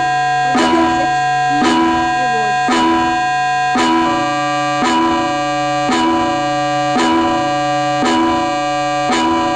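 Electronic emergency-alert alarm tone presented as Colombia's EAS alarm: two held high tones over a low drone, with a new chord struck about once a second in a repeating pattern.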